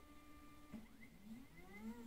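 Z-axis stepper motor of an Anycubic Photon Mono resin printer lowering the build plate to home. It gives a faint steady whine that changes about three quarters of a second in to a warbling whine, rising and falling in pitch over and over.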